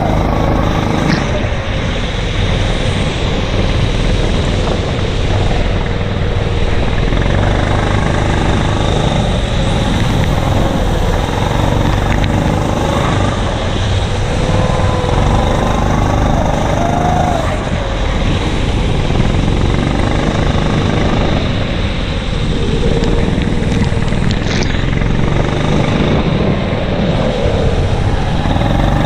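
Racing kart engine heard close up from an onboard camera, running continuously at racing speed, its pitch rising and falling again and again as the kart accelerates out of and lifts into corners.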